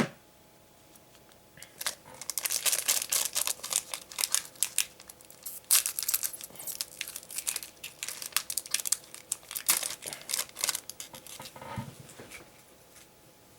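A single sharp click, then a foil trading-card booster pack wrapper being torn open and crinkled, a dense run of crackles lasting about nine seconds.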